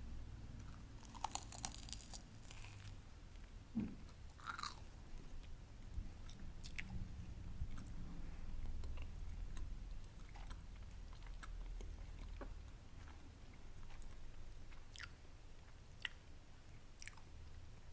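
Close-miked chewing of a baked egg wrap: a crunchy bite about a second in, then soft chewing with scattered small crackles and mouth clicks.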